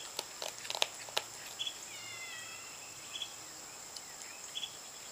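A young raccoon picking dry cat kibble out of a bowl and crunching it, with a few sharp clicks in the first second or so. Behind it runs a steady high-pitched insect chorus, with short bird chirps every second or two and a brief warble around the middle.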